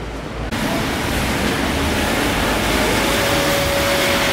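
Steady city street noise, a hiss like traffic on a wet road, that starts abruptly about half a second in. A steady mid-pitched hum joins it about three seconds in.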